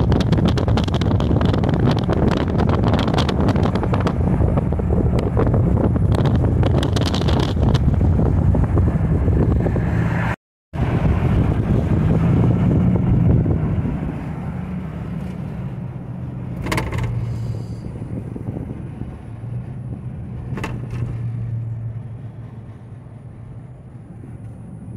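Road noise of a vehicle driving: a steady rush of tyres and wind over a low engine hum. It cuts out for a moment about ten seconds in, and from about fourteen seconds on it is quieter.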